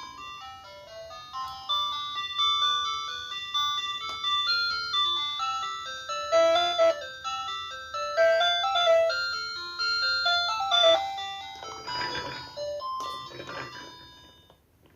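Toy ice cream cart's built-in sound chip playing an electronic ice-cream-van melody of simple beeping notes. A brief noise comes about twelve seconds in, and the tune fades away near the end.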